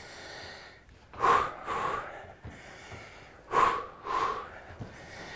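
A person breathing hard from exertion: a quick pair of breaths, in and out, about every two and a half seconds.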